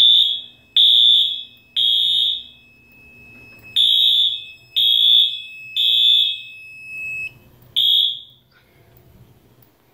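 Fire alarm horns sounding the temporal-3 evacuation pattern after a pull station is pulled: three short high blasts, a pause, three more, then a single blast before they stop. Under them a steady high beep from the control panel's buzzer runs until about seven seconds in, when it cuts off.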